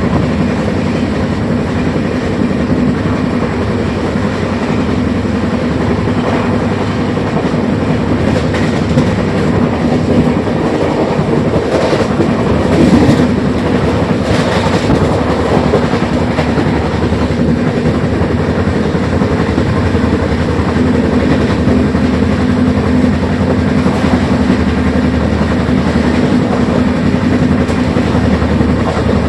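Train running at a steady speed: a continuous loud rumble with a steady low hum, and a brief burst of higher rattling noise about halfway through.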